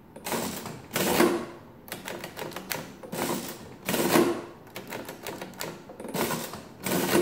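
1940s Barrett ten-key adding machine worked by its hand crank handle, pulled several times in a row. Each pull gives a clattering run of its gears and printing mechanism, with the loudest strokes about one and four seconds in.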